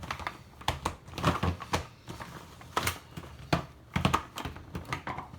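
Plastic layers of a giant 18 cm Rubik's cube being turned during a scramble: a series of irregular plastic clicks and clacks, about eight in all, as the oversized pieces snap and catch into place.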